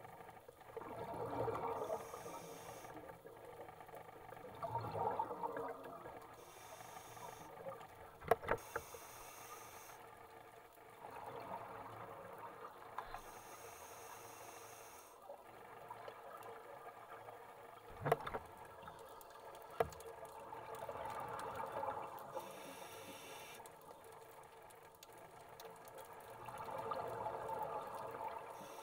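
Scuba divers breathing through their regulators, heard underwater: a short hiss on each inhale, then a gurgling rush of exhaled bubbles, in a slow cycle of a few seconds. A few sharp clicks come through now and then.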